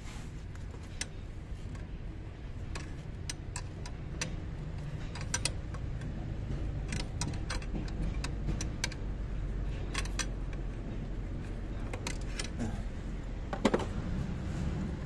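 Scattered sharp metallic clicks and clinks of hand tools working at a diesel fuel injector line fitting, with a louder clatter near the end, over a low steady rumble.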